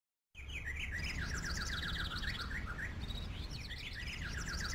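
Songbird singing: repeated phrases of rapid chirps, each phrase lasting about two seconds and recurring, over a steady low rumble. The birdsong starts a moment after a brief silence.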